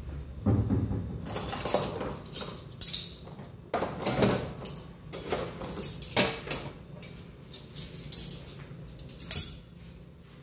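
Metal cutlery and kitchen utensils clinking and clattering as they are handled and put away, a string of sharp, irregular clinks.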